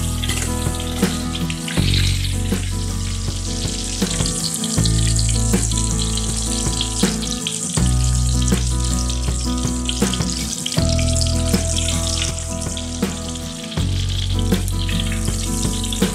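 Battered cempedak pieces deep-frying in hot oil in a wok: a steady sizzle with fine crackles. Underneath is background music with a low bass note that changes about every three seconds.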